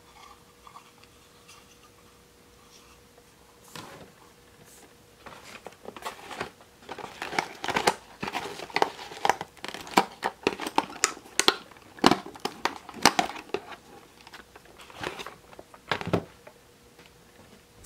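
Clear plastic toy packaging crinkling and clicking as hands work a small doll accessory, a gold key-shaped comb, loose from the box insert. The crackles are irregular and start about four seconds in.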